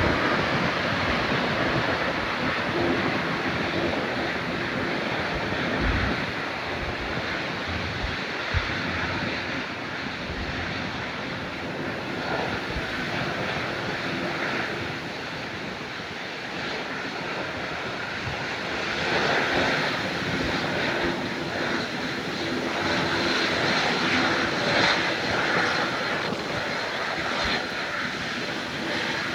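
Jet airliner engines at takeoff power: a continuous rushing jet noise that swells and eases in loudness, louder again in the latter half.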